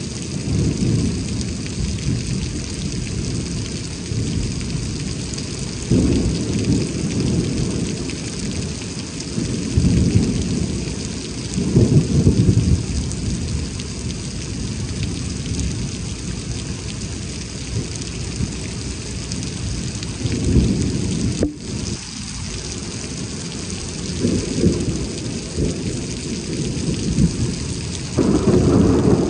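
Heavy thunderstorm rain falling steadily, with low thunder rumbles swelling and fading every few seconds.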